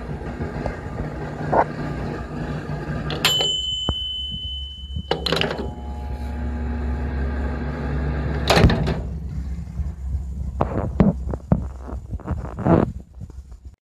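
Sharp Hi-Cooker R-527 microwave oven running with a steady hum that grows deeper and louder about four seconds in and eases off after about nine seconds. A steady high beep of about two seconds sounds near the start, and sharp clicks and knocks of the door and controls come through, several in quick succession near the end.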